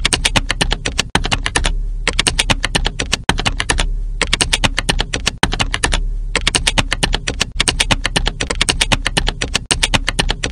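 Typing sound effect: runs of rapid key clicks, about ten a second, broken by short pauses every second or two, over a steady low hum.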